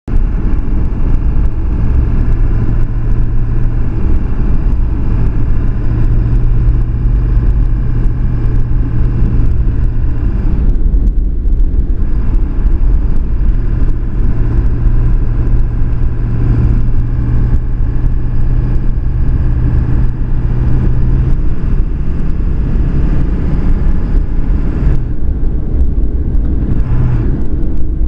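Vehicle being driven through snow on an unplowed road: a steady engine drone over low road rumble, easing off briefly about eleven seconds in and again near the end.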